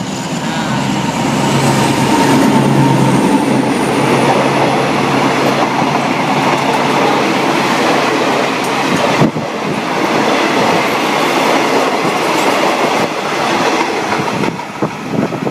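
Diesel locomotive passing close at the head of a passenger train, its engine loudest about two to three seconds in, followed by the steady rolling noise of the passenger coaches' wheels on the rails as they run by. One sharp knock sounds about nine seconds in.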